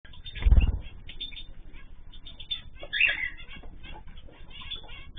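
Small cage birds chirping and calling over one another in quick short notes, with a louder burst of calls about three seconds in. A low thump sounds about half a second in.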